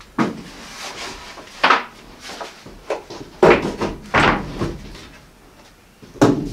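Long wooden boards knocking and clattering against each other and the wooden porch deck as they are carried and set down: a string of sharp hollow knocks, the loudest about three and a half seconds in, again just after four seconds, and once more near the end.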